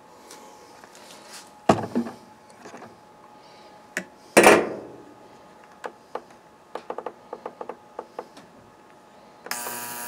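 A few sharp knocks and clatter from handling a small part and pliers, then a quick run of clicks from pressing the control-panel buttons of a Chicago Electric ultrasonic cleaner to set its timer. Near the end the ultrasonic cleaner starts running with a steady high buzz and hiss.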